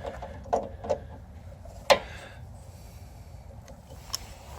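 Hands working at a snowblower's carburetor: a few light clicks and knocks, then one sharp click about two seconds in.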